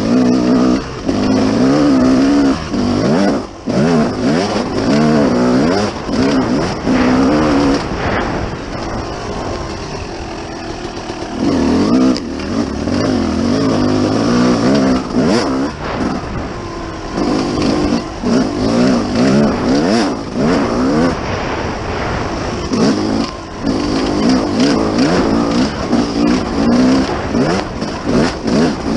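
Dirt bike engine revving up and down over and over as it is ridden hard along a trail, the pitch climbing under throttle and dropping off on shifts and between bursts.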